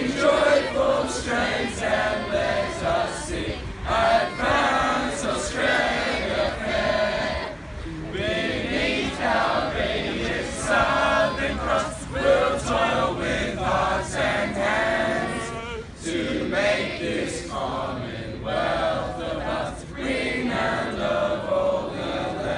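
A large group of teenage boys and girls singing an anthem together, unaccompanied, with short breaks between phrases.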